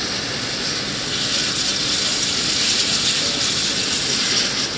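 Medical helicopter's turbine engine running, a steady hissing whine that grows a little louder after about two seconds.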